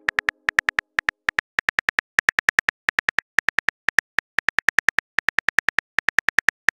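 Simulated phone keyboard typing clicks: short, evenly pitched ticks, one per letter, several a second, in runs broken by brief pauses.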